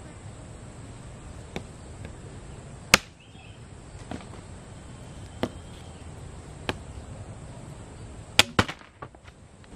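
A machete striking wood in single chopping blows, about a second or more apart, the loudest about three seconds in and two quick blows near the end.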